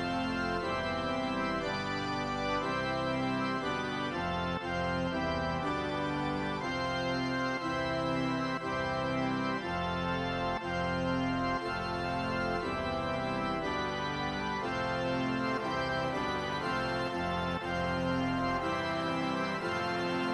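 Background music: an organ playing sustained chords that change every second or so.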